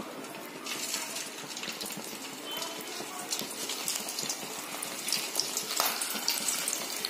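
Hot oil sizzling and crackling as potato fingers are dropped into a steel pan to deep-fry. The sizzle grows louder about a second in and again near six seconds as more pieces go into the oil.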